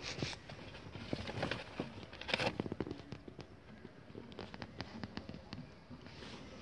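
Irregular crackling and rustling of a thin plastic sheet close to the microphone, densest in a burst of crackles about two and a half seconds in, then thinning to scattered ticks.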